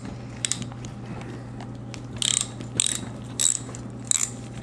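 3/8-inch socket ratchet with a 15 mm socket clicking in short bursts as it is swung back and forth, loosening a bicycle wheel's axle nuts. There is a faint click near the start, then four bursts in the second half, about two-thirds of a second apart.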